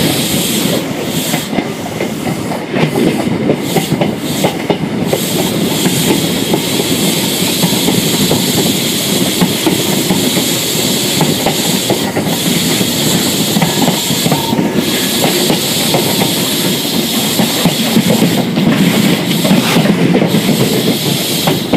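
High Speed Train's coach wheels rolling slowly over jointed track and pointwork: a steady rumble with irregular clicks as the wheels cross rail joints and crossings, over a hiss.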